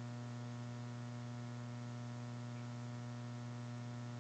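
Steady electrical mains hum: a low, unchanging drone with a ladder of fainter overtones above it, and no other sound.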